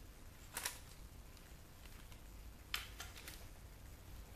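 Two light clicks, about two seconds apart, from small parts of a CD changer being handled during teardown, over quiet room tone.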